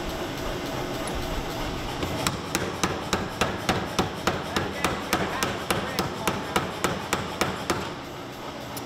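Power hammer striking a red-hot steel axe blank held in tongs, forging it: a fast, even run of blows, about four a second, that starts about two seconds in and stops near the end.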